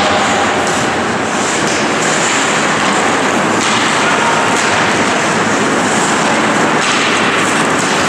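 Ice hockey game sound in an indoor rink: a steady loud wash of arena noise with skate blades scraping the ice now and then.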